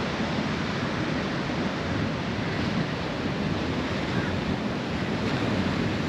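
Ocean surf washing steadily onto a sandy beach and rocky reef, with wind buffeting the microphone.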